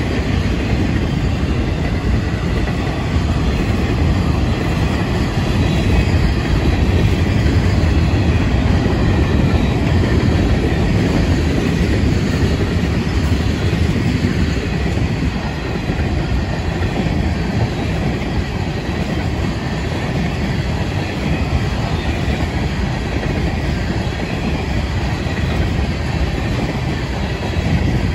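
Florida East Coast freight train's boxcars and tank cars rolling past at close range: steady, loud noise of steel wheels running on the rails.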